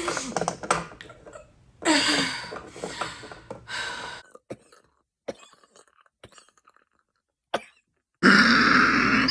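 A person coughing hard, several harsh coughs in the first four seconds, then a few faint clicks. A loud, harsh burst of sound begins near the end.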